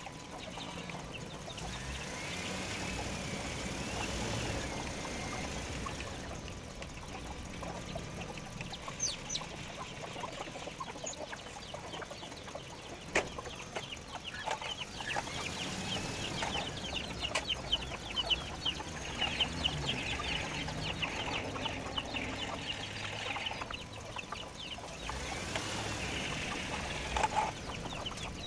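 Chickens clucking and calling, with short rising-and-falling calls that come and go several times, and a few sharp clicks.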